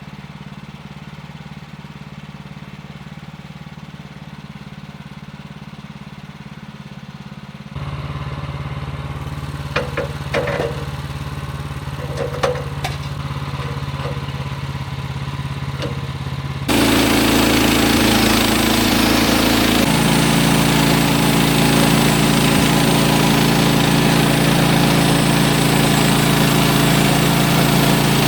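Gas engine of a Woodland Mills HM130 Max portable bandsaw mill running steadily. It steps up in level about eight seconds in, with a few clunks over the next several seconds. At about seventeen seconds it jumps to a much louder, harsher running sound that holds to the end.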